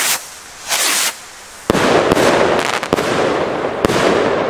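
Jorge Killer Rockets bursting in the air. A short hiss comes near the start, then a sudden loud bang about a second and a half in, followed by dense crackling with a few more sharp bangs. It fades slowly toward the end.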